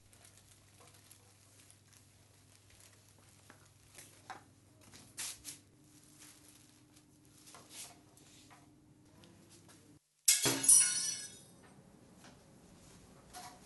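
Quiet kitchen room tone with a low hum and a few faint clicks, then, about ten seconds in, a sudden loud clatter of dishes and glass that rings for about a second.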